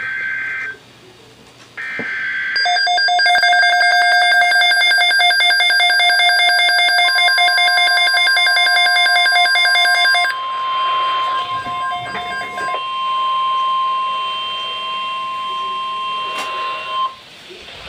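Emergency alert tones on a weather radio broadcast: short buzzy digital data bursts, then a loud, rapidly pulsing alarm tone for about eight seconds. A steady single alert tone near 1 kHz joins it and holds for about ten seconds before cutting off near the end.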